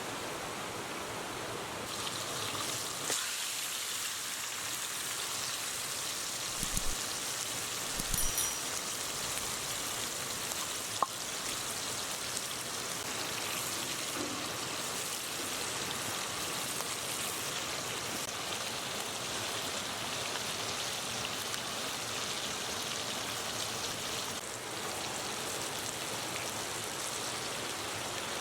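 Steady rush of a flowing river, with a couple of soft knocks about 7 and 8 seconds in and a sharp click about 11 seconds in.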